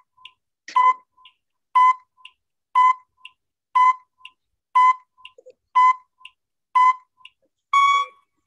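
Countdown timer beeping once a second, each short electronic beep followed by a fainter blip. A longer final beep sounds near the end as the timer reaches zero.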